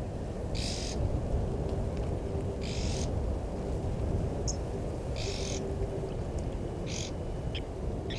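Wild birds calling at a waterhole: a hissy call of about half a second repeats four times, roughly every two seconds, with a few short high chirps and a faint low cooing tone in the middle, over a steady low rumble.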